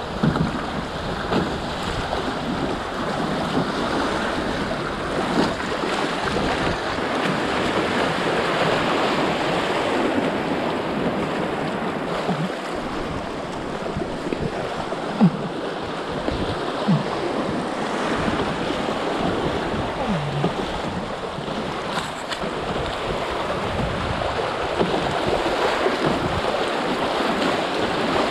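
Fast river water rushing and splashing around a canoe running a riffle, heard from on board, with a few short paddle splashes.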